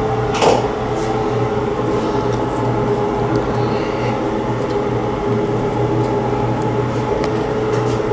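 A steady machine hum, like a motor or fan running, with one short knock about half a second in.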